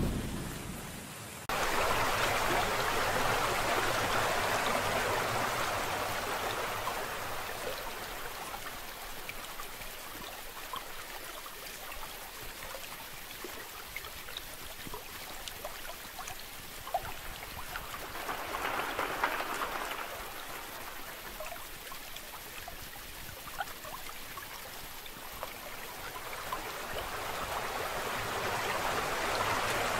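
Steady rain with small drops ticking, mixed with a rush of running water. It starts abruptly about a second and a half in, swells briefly about two-thirds of the way through, and builds again near the end.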